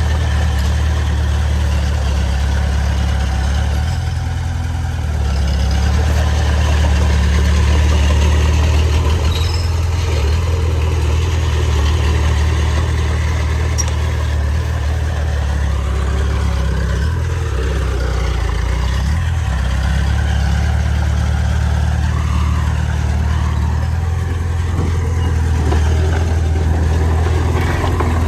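Heavy diesel earthmoving engine running continuously with a deep steady drone. The level dips slightly a few seconds in, then rises about eight seconds in, as the engine works under changing load.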